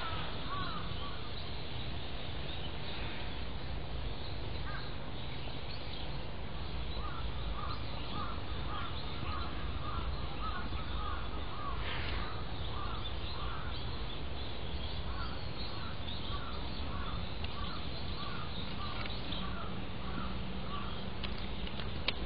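A long series of short animal calls, about two a second, starting about six seconds in and stopping a few seconds before the end, over a steady outdoor background hiss.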